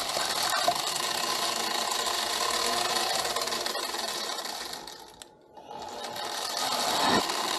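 A workshop machine's electric motor running steadily. About five seconds in the sound fades to near silence, then comes back up a second later.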